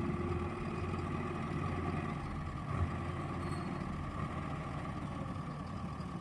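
Heavy diesel engine running at a steady idle.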